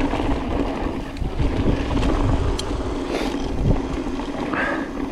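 Wind rushing over the microphone of a mountain bike rolling down a trail, with rumble and knocks from the ground and a steady low hum throughout. A brief squeak comes near the end.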